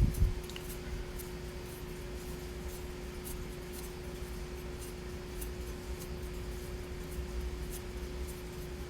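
Faint scattered clicks and rubbing of small parts being handled while a steering column lock ring is fitted, over a steady hum at one pitch; a short knock right at the start.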